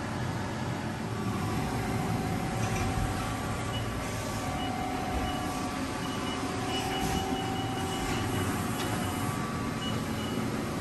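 Steady machinery hum and rumble, with faint whining tones that come and go.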